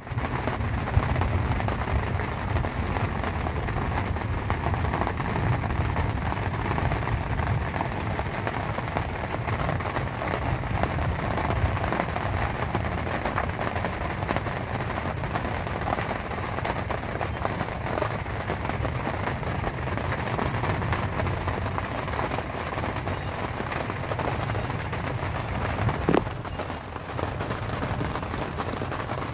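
Steady heavy rain drumming on the canvas roof of a canvas tent, heard from inside as a dense, constant patter. A single louder knock sounds near the end.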